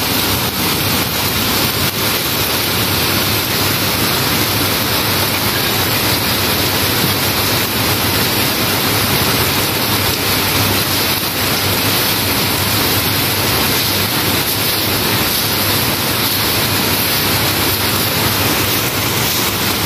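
Heavy tropical downpour falling steadily on a wet paved lane and rooftops: an even, continuous rushing hiss.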